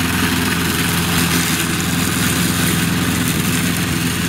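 Petrol walk-behind rotary lawn mower running steadily and loudly as it is pushed through grass, an even engine drone under the hiss of the blade cutting.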